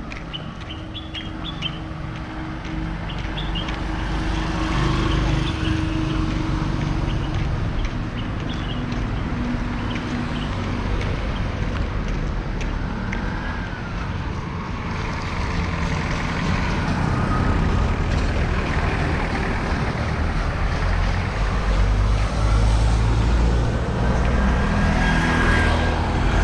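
Road traffic: vehicle engines running and passing close by, a steady low rumble that gets louder after the first few seconds.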